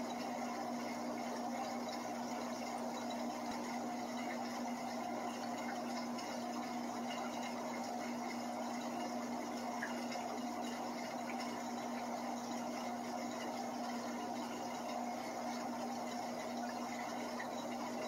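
Aquarium filtration equipment running steadily: a pump motor's constant hum under an even hiss of moving water.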